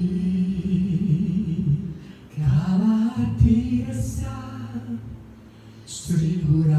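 A man and a woman singing a duet into microphones over a backing music track, the sung lines wavering with vibrato and pausing briefly about two seconds in.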